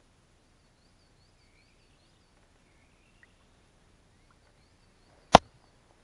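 Faint birdsong: quick series of high chirps and a few slurred whistles. About five seconds in, a single sharp, loud knock.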